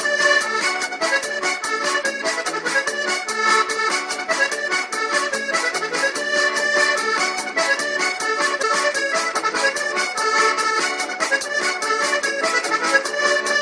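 Upbeat music with an accordion lead over a fast, steady beat.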